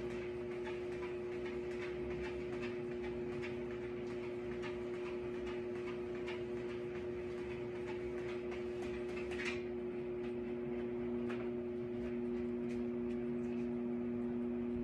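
Electric treadmill running at a steady speed: an even motor hum with light ticking from the moving belt.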